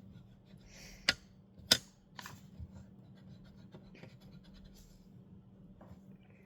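Marker tip scratching on paper, with two sharp clicks about a second in.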